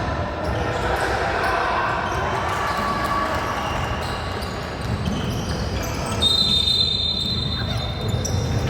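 Indoor basketball game in a gym: ball bouncing and players' and spectators' voices echoing in the hall. A long high steady tone comes in about six seconds in.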